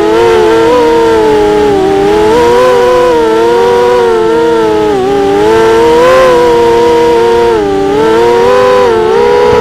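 ImmersionRC Vortex FPV racing quadcopter's brushless motors and Gemfan 5x4 propellers whining, heard from on board. The pitch rises and falls constantly with the throttle through the turns, dipping about five seconds in and again near the end.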